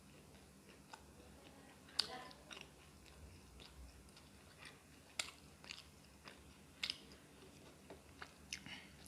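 A person chewing food close to the microphone, with irregular short, sharp wet mouth clicks every second or so, the loudest about two seconds in.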